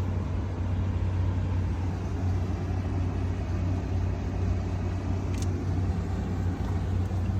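Steady low hum and rumble of a running Carrier rooftop HVAC unit.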